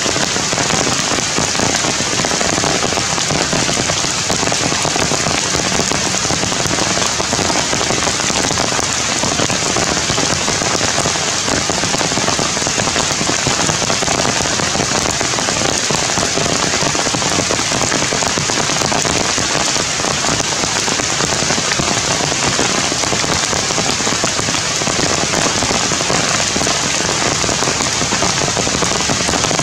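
Steady rain falling: an even, unbroken hiss that holds at the same level throughout.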